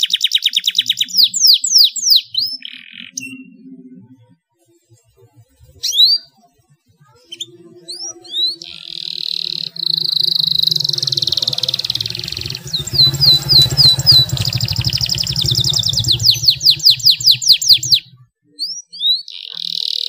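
Canary singing: rapid rolling trills and sweeping chirps, then a long unbroken roll through the second half after a short pause about four to six seconds in. A low rumble runs underneath the long roll.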